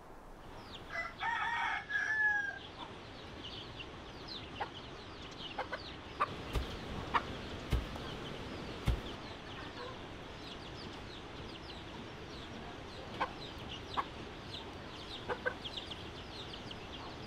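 A rooster crows once, about a second in, over steady, rapid high-pitched chirping. Around the middle there are a few dull thumps, about a second apart, among scattered sharp clicks.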